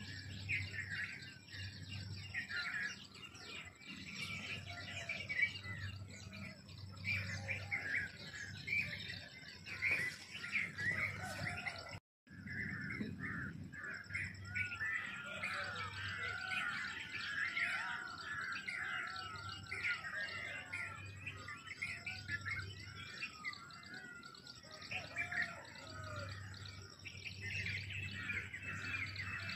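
A brood of newly hatched chicken chicks peeping nonstop, many high, short cheeps overlapping at once. The sound cuts out for a moment about twelve seconds in.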